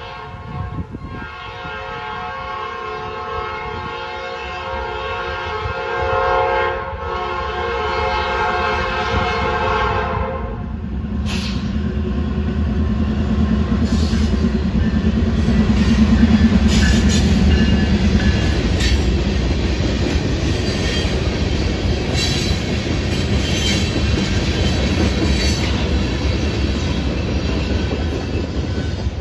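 Norfolk Southern diesel freight locomotive blowing its multi-chime air horn in long blasts, with two short breaks, for about the first ten seconds. The horn then stops and the locomotive's engine rumbles past, loudest a few seconds later. The tank cars follow with a run of wheel clicks and clanks as they roll over the track and the KCS crossing diamond.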